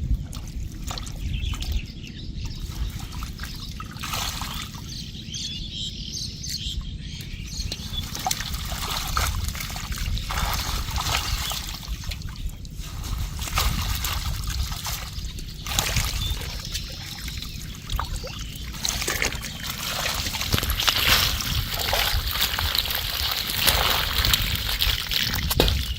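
Water trickling and splashing, with scattered small splashes and knocks and a steady hiss that grows louder in the last several seconds.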